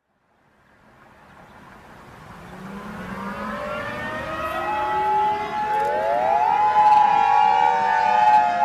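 Civil defense sirens fading in from silence and growing steadily louder. Several overlapping wails rise in pitch and then hold, with new ones winding up one after another.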